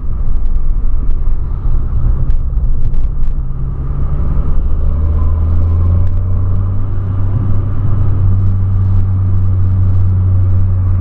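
Volkswagen Polo being driven, its engine and road noise heard inside the cabin as a steady low drone. About five seconds in, the drone shifts pitch and grows stronger.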